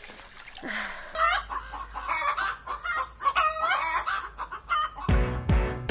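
Chickens clucking in a quick run of calls, then music with a heavy bass beat coming in near the end.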